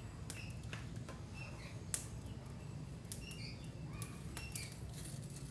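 Small wood fire crackling, with scattered sharp pops over a steady low rumble, and faint short high chirps coming and going.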